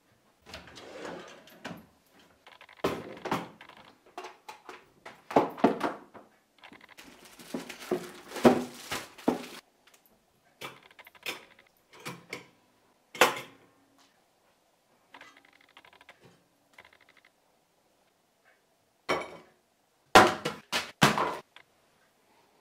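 Kitchen handling sounds: a string of clatters and knocks from crockery, cupboard doors and a toaster being worked, with short gaps between them. The sharpest cluster of knocks comes near the end.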